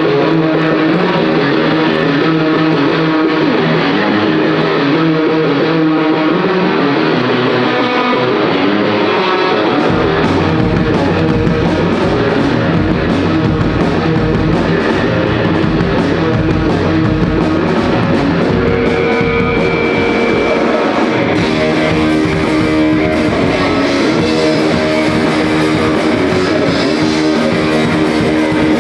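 Rock band playing a song: electric guitar first, with bass and drums coming in about ten seconds in for the full band sound.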